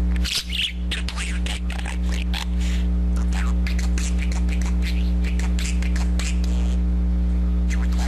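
Talking budgerigar chattering in quick high-pitched chirps and clicks, over a loud steady electrical hum.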